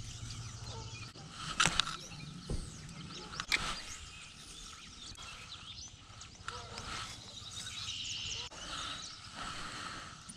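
Birds chirping and singing, with a few sharp knocks in the first few seconds.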